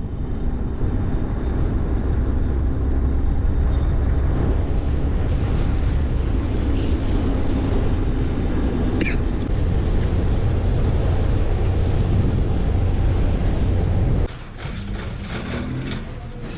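Steady low rumble of movement noise, with no clear engine note, which drops away abruptly about fourteen seconds in.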